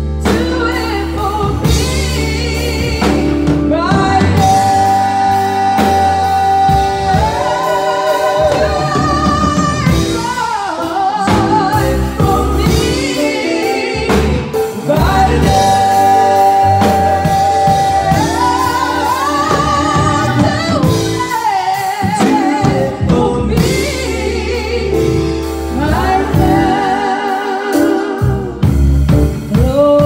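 Two women singing a gospel song into microphones with live band accompaniment, the voices wavering with vibrato and holding long high notes twice.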